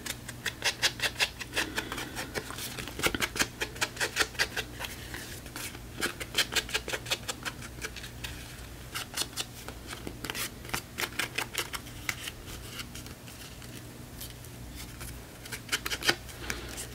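Foam ink dauber dabbed against the edges of a paper card, inking them: runs of quick tapping dabs, several a second, broken by short pauses.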